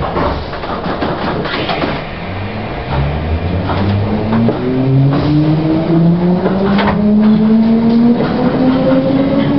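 London Underground C Stock train accelerating away from a station: its traction motors whine, rising steadily in pitch and getting louder, with clicks and clunks from the wheels over rail joints.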